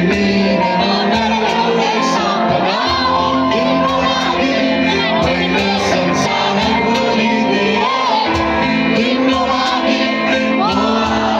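Live band music played loud through a PA, with a singer's voice over it and a steady beat.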